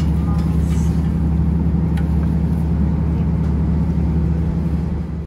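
Diesel railcar's engine running with a steady low drone, heard inside the passenger car close to the floor. It cuts off suddenly near the end.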